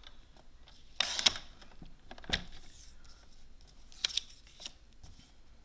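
Cardstock and paper being handled and slid about on a paper trimmer. A short papery swish comes about a second in, a soft knock a little after two seconds, and a few light clicks around four seconds.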